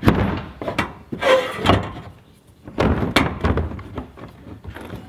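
Steel support brace being worked loose and pulled off the metal cage of an IBC tote: a run of irregular metal clanks and knocks, with a scraping stretch about a second in as the brace drags across the frame.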